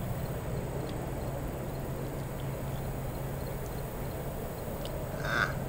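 Outdoor background with a steady low hum, a few faint ticks, and one short animal call about five seconds in.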